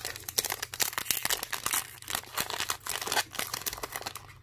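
Foil wrapper of a Pokémon trading card booster pack crinkling and tearing as it is opened by hand, a dense run of crackles.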